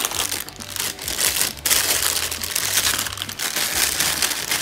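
Packaging crinkling and rustling continuously as it is handled by hand while parts are unpacked.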